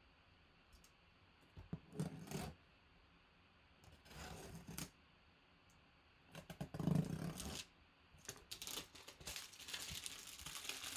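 Folding pocket knife slitting the plastic wrap and seam of a shrink-wrapped cardboard box: three short scraping, tearing strokes, then more continuous cutting and crinkling of the wrap near the end.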